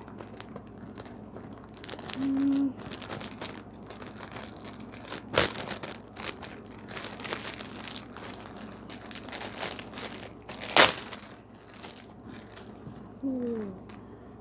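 Packaging being handled and unwrapped, crinkling and rustling throughout, with two sharp knocks about five and eleven seconds in. Two brief low hum-like tones come about two seconds in and near the end, the second falling in pitch.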